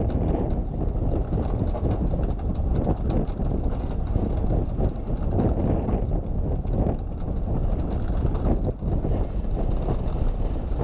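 Strong wind buffeting the microphone on a sailboat's bow, a loud, steady, fluttering rumble, in about 30 knots of wind.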